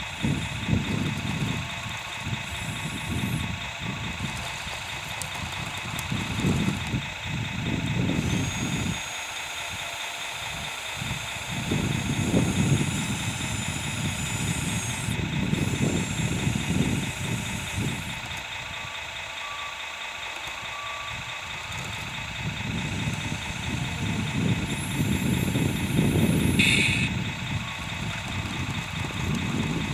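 Radio-controlled model track loader at work pushing soil, its motors giving a steady high whine throughout. Uneven low rumbling comes and goes every few seconds, and there is a short high-pitched burst near the end.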